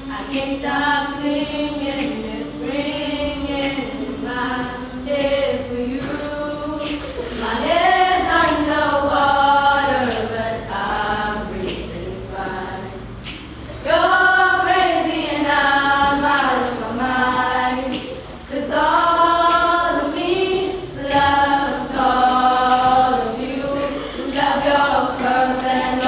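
A group of girls singing a song together, a choir-like blend of voices, swelling louder about eight seconds in and again about fourteen seconds in.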